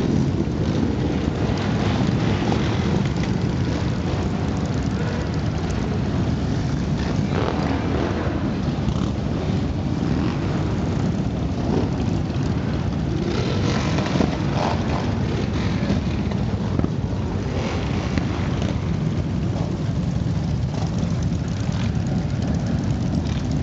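A long procession of motorcycles riding past, many engines running together in a steady, dense drone, with louder swells from single bikes passing close several times.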